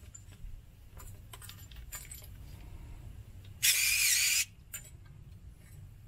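Light metallic clinking and ticking from a screw-type hose clamp and brass garden-hose end fitting being handled. About two-thirds of the way through comes a short high-pitched whir of under a second, a small power driver tightening the clamp onto the hose.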